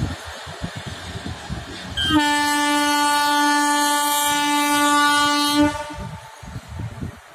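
WAG-7 electric locomotive's air horn sounding one long, steady blast of about three and a half seconds, starting about two seconds in. Before it, the low running noise of the locomotive moving off along the track.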